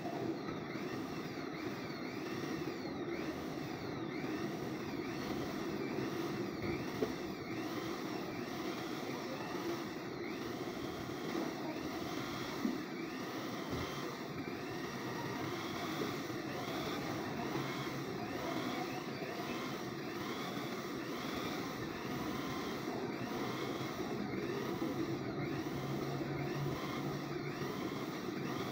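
Corded electric drill running steadily, spinning an engine valve against its seat in the cylinder head to grind (lap) it in. The whirr pulses about once a second, with faint rises and falls in pitch.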